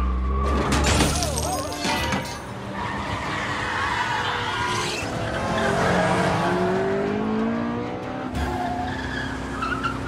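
Film car-chase sound mix: car engines revving, with a heavy low rumble in the first two seconds and rising engine pitch in the middle, tyres skidding, over background music.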